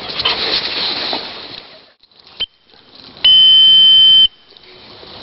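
A whistle blown once, a loud steady high note about a second long, as used to call dogs in training. It comes about three seconds in, after rustling noise that dies away and a single sharp click.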